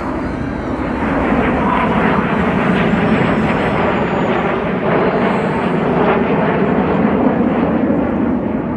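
BAE Hawk T1 jets flying past during an aerobatic display, a steady jet roar that grows louder about a second in.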